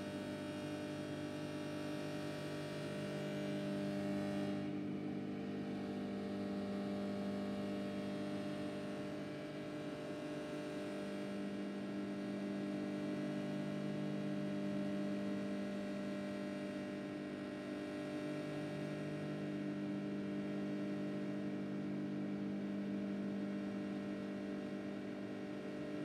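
Microwave oven running with a bag of popcorn inside: a steady electrical hum that swells and eases slightly, with no pops yet because the kernels have not started to pop.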